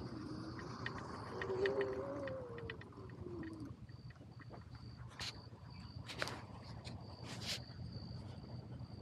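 Sur-Ron X electric dirt bike's motor whining, its pitch sliding up and down and then dying away over the first few seconds as the bike slows. After that comes a faint, steady, high-pitched buzz, with three short rushes of noise.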